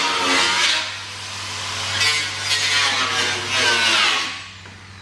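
Grinder cutting through a plastic tractor body panel, loud and steady with a constant motor hum. It is switched off about four seconds in and winds down with a falling whine.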